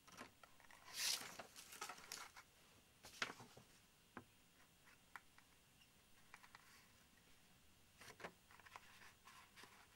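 Faint rustling and crinkling of tape being handled and pressed onto a plastic scale model, in scattered short bursts with a few small clicks. The bursts bunch about a second in, around three seconds and again near the end.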